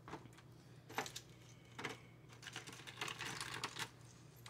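Faint taps and rustles of a stack of paper game cards handled in the hands: three separate taps in the first two seconds, then a run of quick rustling strokes near the end. A low steady hum lies underneath.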